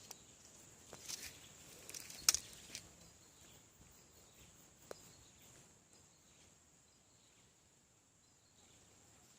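Faint steady high-pitched insect drone, with a few scattered clicks and knocks, the loudest a little over two seconds in.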